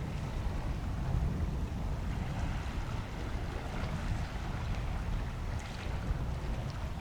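Steady low rumble of outdoor airport background noise with a faint hiss above it.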